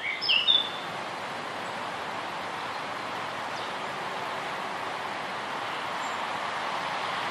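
A few short bird chirps in the first half-second, then a steady, even rushing noise.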